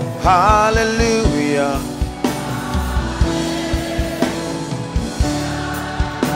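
Live worship band playing a slow gospel accompaniment: sustained keyboard and guitar chords over a regular drum-kit beat, with a held note wavering in vibrato in the first second or so.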